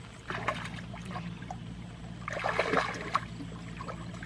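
Water splashing and sloshing as hands grope through shallow muddy water to catch fish, in uneven bursts, loudest a little past the middle.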